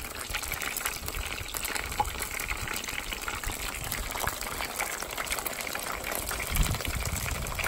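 Battered catfish pieces deep-frying in hot oil: a steady crackling sizzle full of fine pops, with a dull low bump near the end.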